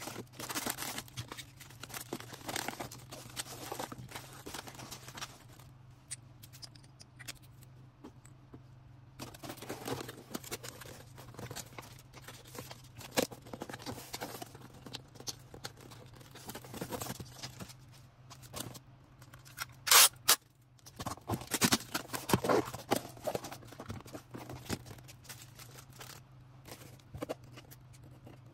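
Hands packing a small online order: packaging crinkling and rustling, with tearing or snipping and scattered taps and clicks over a steady low hum. Two sharp, loud clicks come about twenty seconds in.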